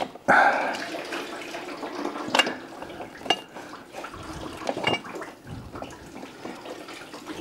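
Fluid trickling and splashing into a drain pan as the unbolted oil cooler is worked loose. There is a louder splash just after the start, and a few sharp clicks of parts being handled.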